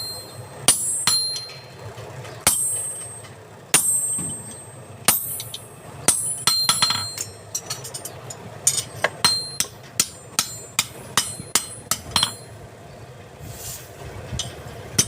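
Hammer striking metal, each blow ringing. The blows come irregularly at first, then in a quicker run of about two to three a second from roughly nine to twelve seconds in.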